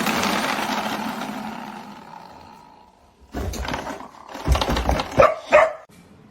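A dog growling with bared teeth, a rough sound that fades over about three seconds. A few short, rough dog noises with low thumps follow.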